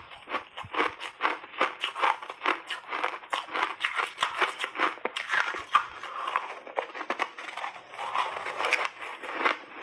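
Refrozen snowballs crunching and crackling between the teeth as they are bitten and chewed in big bites: a dense run of sharp, brittle crunches several times a second.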